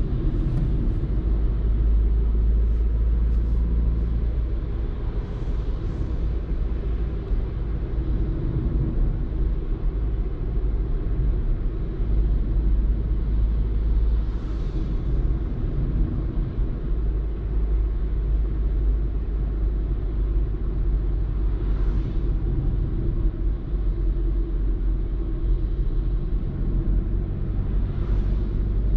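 Renault Clio IV's 1.2 TCe turbocharged four-cylinder petrol engine running steadily with road and tyre noise while the car drives through town. Brief whooshes come through a few times.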